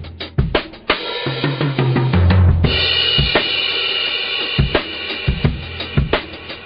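Music with a drum-kit beat of kick drum, snare and cymbals; a low bass line comes in about a second in, and a bright sustained cymbal-like wash joins the beat about two and a half seconds in.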